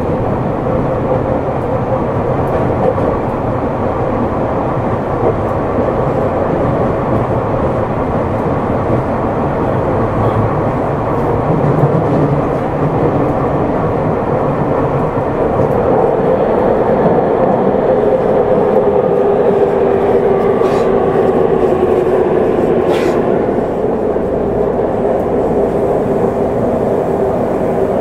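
Hanzomon Line subway train running through a tunnel, heard inside the passenger car: a steady rumble of wheels on rail with a hum whose pitch sinks slowly in the second half as the train slows for the next station.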